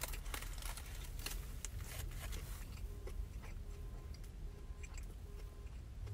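Close-up chewing of a mouthful of burger, with sharp mouth clicks that come thick in the first three seconds and thin out after, over a steady low hum.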